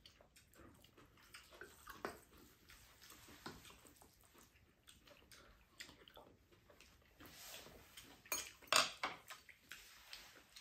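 Spoons and chopsticks clinking and scraping lightly against ceramic bowls during a meal, with a louder clatter about eight and a half seconds in.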